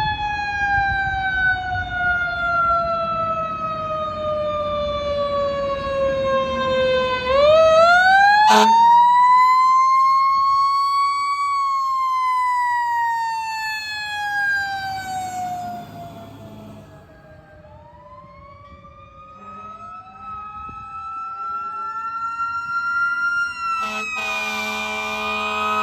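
Fire truck siren in long slow wails: the pitch winds up quickly, then coasts down for several seconds at a time. A short horn blast comes about eight seconds in, and a louder, longer one near the end.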